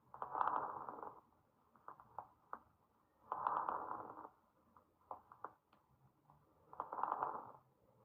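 Recorded lung sounds with fine crackles: three breaths a few seconds apart, each a noisy rush about a second long, with short popping clicks in and between them. Fine crackles are a sign of a restrictive lung disease or of early acute pulmonary oedema.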